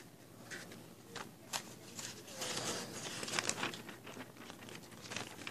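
Paper posters being handled, with faint rustling and crinkling and a few light clicks and taps.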